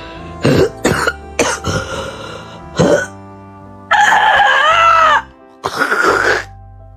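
An animal coughing and retching: four short hacking coughs, a longer drawn-out gagging sound, then one more cough, over background music.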